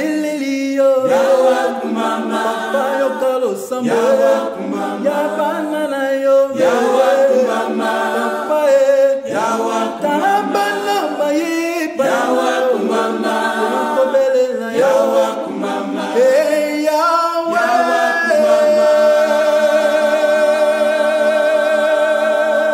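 A choir singing unaccompanied in short repeated phrases, ending on one long held chord with a slight vibrato near the end.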